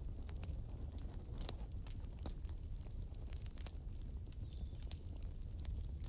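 Wood fire of glowing embers crackling: a steady low rumble with scattered sharp pops and crackles throughout, and a faint high wavering whistle in the middle.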